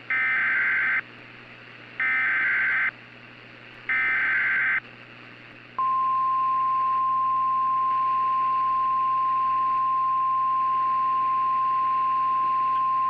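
Emergency Alert System SAME header: three bursts of high, warbling data tones, about a second each, then a single steady weather-radio attention tone from about six seconds in. A low hum and hiss runs underneath.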